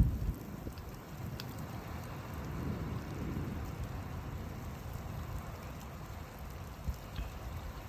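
Steady rain falling, with scattered drop ticks and low thunder rumbling: a louder rumble fades in the first moment, and a weaker one swells a few seconds in.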